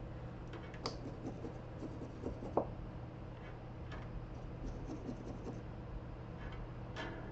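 Light scratching and a few small clicks from soldering tools working on the pads of a laptop circuit board, over a steady low hum.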